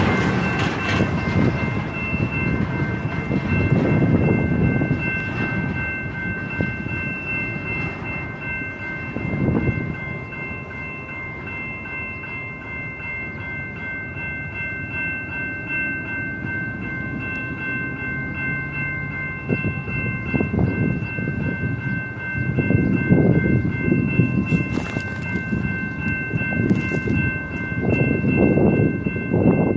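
Railroad grade crossing bell ringing continuously as the crossing gates lower and stay down, a steady high-pitched ringing with low rumbling swells that rise and fall beneath it. A train horn sounds faintly in the distance about halfway through.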